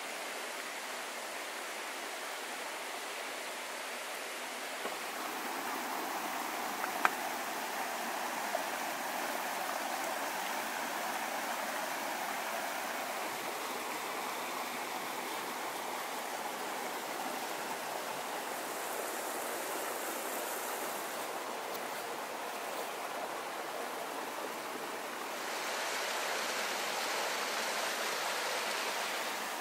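Rushing mountain stream flowing over rocks, a steady rush that grows a little louder near the end. A few sharp knife taps on a wooden cutting board stand out in the first third.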